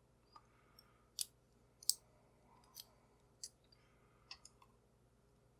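Faint, sparse, sharp clicks of small metal parts being handled: tweezers and lock pins tapping as a cheap padlock's pin stacks are taken out of its core, about eight irregular ticks.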